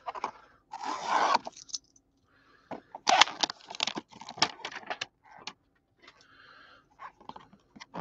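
Stiff plastic blister packaging being pried and torn open by hand: a burst of crinkling about a second in, then a run of sharp plastic clicks and cracks.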